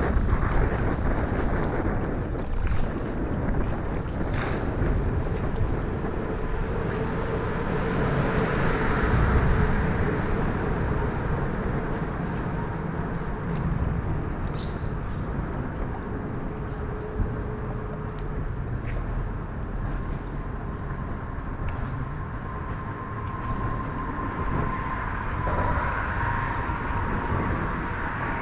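Steady low rumble of road traffic, with wind buffeting the microphone and faint hums that drift slightly in pitch.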